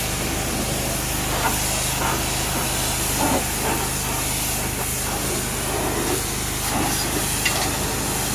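Pressure washer running and spraying: a steady hissing spray over the steady hum of its motor.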